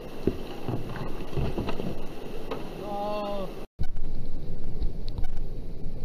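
River rapid rushing through rocks. A person gives a short call about three seconds in, and after a brief dropout the rushing water is louder.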